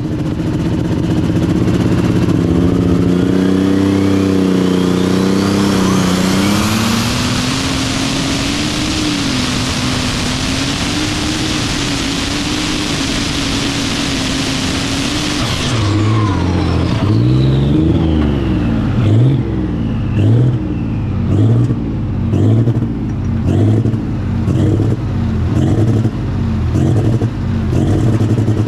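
John Deere superstock pulling tractor's turbocharged methanol engine run flat out under load: the engine note climbs with a rising turbo whine over the first few seconds and is held at full throttle for about fifteen seconds. Then the throttle comes off, the turbo whine falls away, and the engine settles into an uneven, pulsing idle with a beat a little faster than once a second.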